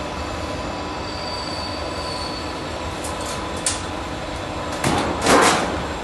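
HVAC duct lock forming machine running with a steady hum while a galvanized steel sheet feeds through its rollers to form the lock seam along its edge. Near the end come several loud clattering rattles as the formed sheet comes free and is lifted.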